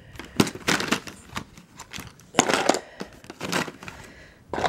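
Plastic lip gloss and lipstick tubes clicking and clattering against each other and into a plastic organizer tray as they are handled by the handful, in several short bursts.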